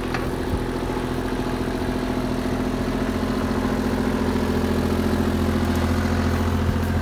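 Excavator engine running steadily with a low, even drone that grows slowly louder over the seconds.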